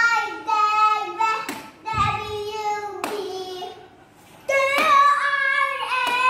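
Young girl singing on her own, with no accompaniment. Her voice breaks off for about a second a little past the middle, then the singing starts again. There are a few short knocks in the first half.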